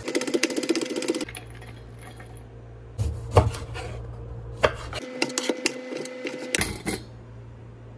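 Chef's knife chopping on a wooden cutting board: a fast run of strokes at the start as spring onion is minced, then a few single knocks and another fast run about five seconds in as limes are cut, stopping about seven seconds in.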